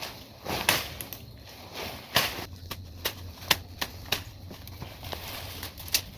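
About a dozen irregular sharp snaps and knocks, the loudest a little after two seconds in and again near the end, as dry brush and sticks are broken and handled underfoot and by hand.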